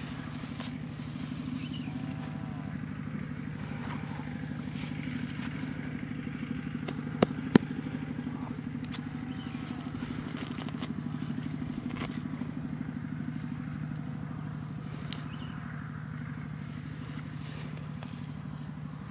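A small engine running steadily and unseen, a low even hum, with two sharp clicks in quick succession about seven seconds in.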